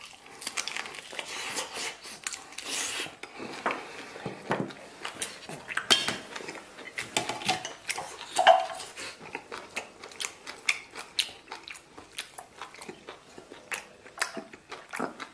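Close-up eating sounds: a man biting and chewing lamb rib meat off the bone, then wooden chopsticks clicking and scraping against an enamel plate as he eats rice pilaf, with many short irregular clicks. The mutton is stewed too little and is tough to chew.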